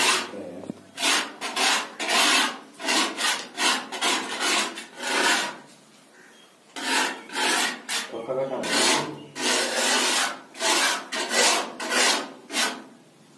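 Mason's steel trowel scraping over wet cement plaster in quick repeated strokes, about two a second, with a short pause near the middle, shaping a plaster border.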